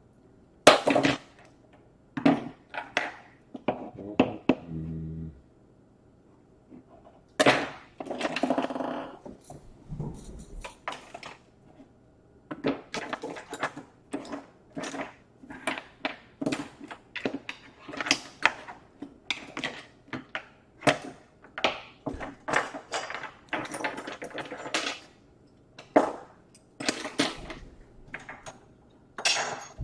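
A laptop being taken apart by hand: irregular clicks, taps and clatter of tools and small parts against its plastic case, with a longer rattling stretch about eight seconds in.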